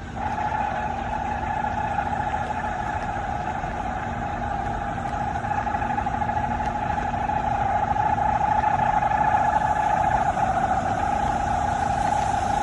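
A loud, steady drone at one mid pitch with a fluttering, wavering edge, held without a break: one of the widely shared unexplained 'strange sky sound' recordings.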